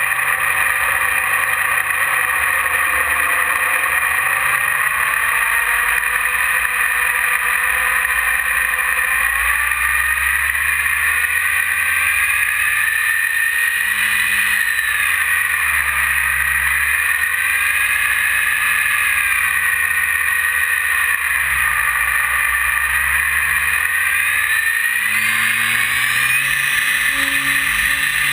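E-flite 480 1020 kV brushless outrunner motor and propeller whining, heard from a camera on the plane, its pitch rising and falling slowly with the throttle, over steady wind rush on the microphone.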